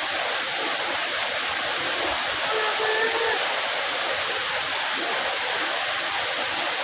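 Multi-level waterfall: steady, unbroken rush of falling water. A faint short pitched sound rises briefly above it about three seconds in.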